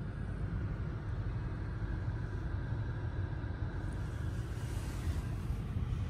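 Steady low rumble inside the cabin of a 2023 BMW XM that is switched on and idling.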